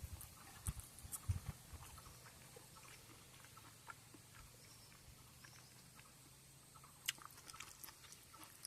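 A few faint, sharp clicks and taps, mostly in the first second and a half and again near the end, over a quiet low hum.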